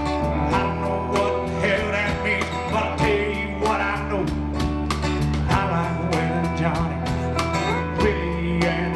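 Live country band playing an instrumental passage: guitar lines with bending notes over bass and a steady drum beat.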